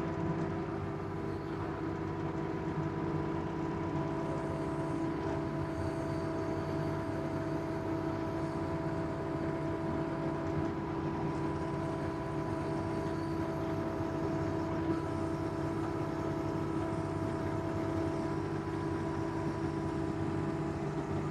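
Mini excavator's diesel engine running steadily, heard from the operator's seat while the bucket grades the trail, with a higher tone that comes and goes over the steady drone.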